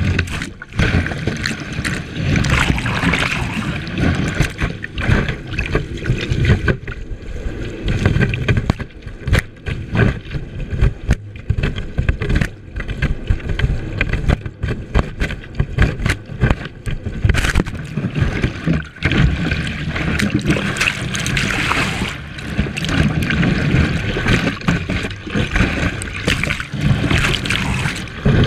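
Wind buffeting a board-mounted action camera while water sprays and splashes against it as a kiteboard skims across the water. The rush is uneven, with many sudden peaks.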